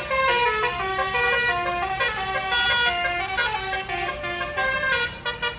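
Tour bus 'basuri' telolet musical air horn, roof-mounted trumpets driven by an electronic tune module, playing a quick melody of stepped notes. It breaks into short choppy blasts near the end.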